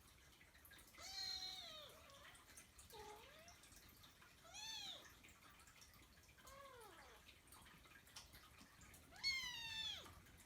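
Persian Chinchilla kitten meowing about five times, high-pitched calls under a second each with pauses between, the last one the loudest.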